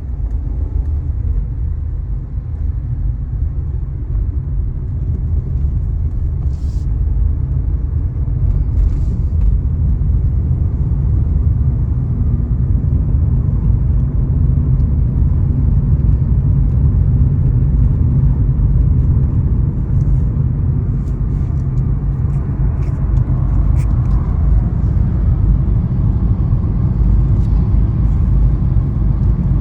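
Car road noise heard from inside the cabin while driving: a steady low engine-and-tyre rumble that builds over the first several seconds as the car gets under way, then holds level.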